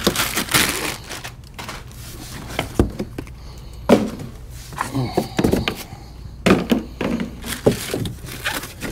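Cardboard box and plastic wrap being handled: scattered thunks and knocks against the box, with short rustles of plastic.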